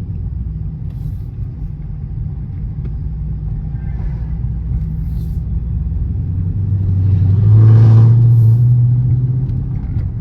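Car engine and road rumble heard from inside the cabin while driving, swelling louder for a couple of seconds near the end as the engine pulls harder, then easing back.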